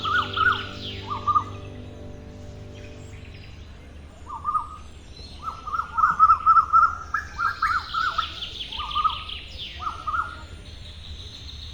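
Small birds chirping: short repeated chirps in clusters, with a higher, faster trill near the start and again about two-thirds of the way through.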